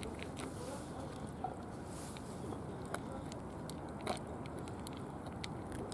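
Several cats eating from small plastic trays: irregular soft clicks and smacks of chewing, over a steady low rumble.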